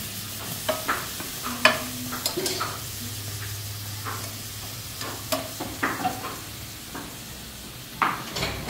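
Food roasting in a pan on the stove, stirred with a utensil that scrapes and knocks against the pan now and then, over a faint sizzle.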